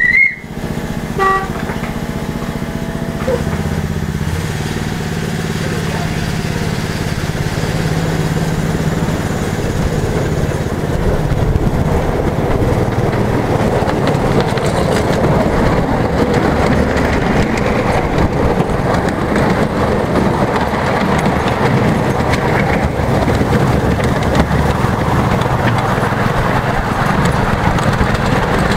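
Miniature railway train pulling away and running along its track: a short high toot at the start, a steady low hum for about the first ten seconds, then a rough rumble of the ride that grows as the train gathers speed.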